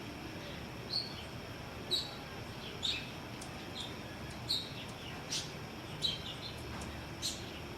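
Birds chirping: short high chirps about once a second at uneven spacing, over steady outdoor background noise.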